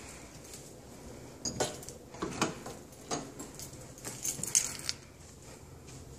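Hallway closet door being opened: its metal knob and latch turned and the door swung open, a cluster of sharp clicks and metallic rattles between about a second and a half in and five seconds in.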